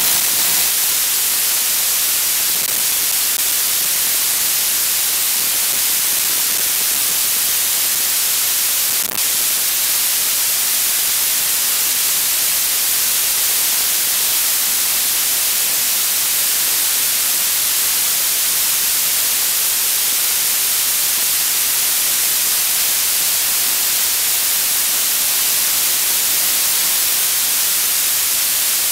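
Steady static hiss from an analog FPV video receiver, the empty audio channel of the drone's video link, with no motor or propeller sound coming through. It dips briefly about nine seconds in.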